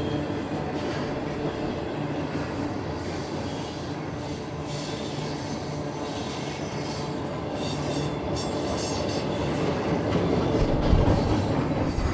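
Double-stack intermodal well cars of a freight train rolling past, their steel wheels running steadily on the rails with some clatter and a thin high wheel squeal at times. The sound grows louder about eleven seconds in.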